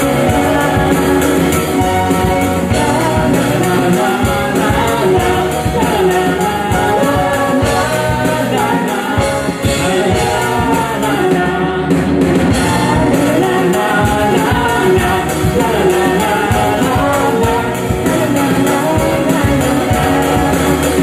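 Live band playing a pop-rock song: a singer on lead vocals over electric guitar, bass guitar and drums.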